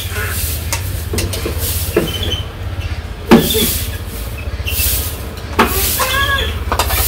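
Steel spoons and bowls clinking a few times as food is served and eaten, over a steady low rumble.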